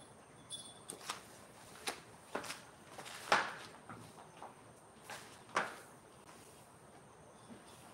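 Feather-and-string wand cat toy swishing through the air and brushing across a tile floor: a string of short scraping swishes, the loudest about three and a half seconds in.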